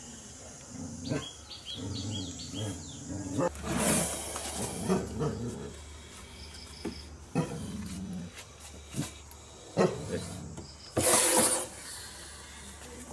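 Cobra hissing in defence: two loud breathy hisses, a short one about four seconds in and a longer one near the end, with scattered light knocks between them.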